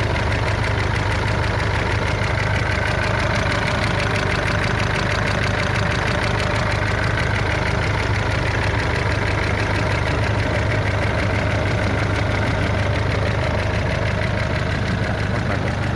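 Nissan Pathfinder's YD25 2.5-litre four-cylinder turbodiesel idling steadily with a fast, even ticking knock, which the owner places at the cylinder head and cannot yet say is a real engine knock.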